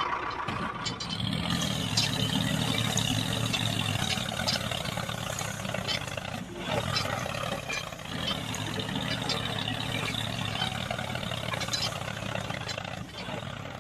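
A motor running steadily: an even low hum under a constant mechanical noise, with a few faint ticks.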